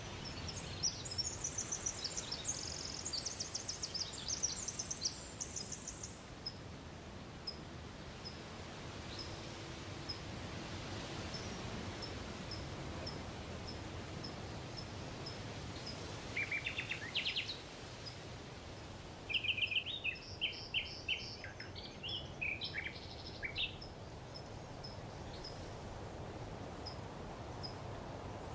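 Forest ambience: a steady hiss of background noise with songbirds singing rapid, trilling phrases in the first six seconds and again about two-thirds of the way through. Underneath runs a faint, high single chirp repeated a little faster than once a second.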